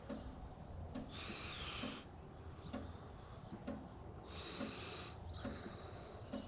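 Faint footsteps at a steady walking pace, about one a second, with two longer hissing sounds, one about a second in and another past the four-second mark.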